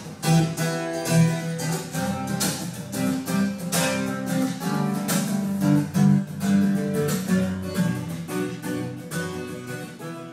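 Background music on acoustic guitar, strummed and plucked at a steady pace.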